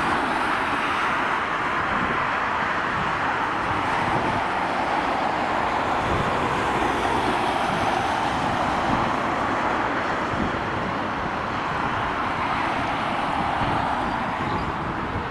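Airbus A320-214's CFM56 jet engines running at low thrust as the airliner rolls along the ground, a steady whine and rush that eases off slightly near the end.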